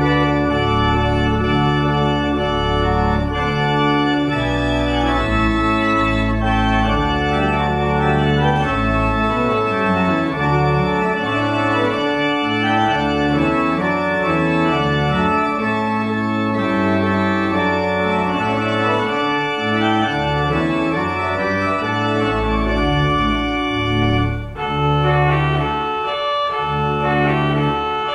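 Organ music: full sustained chords over a stepping bass line, with a brief break about 24 seconds in.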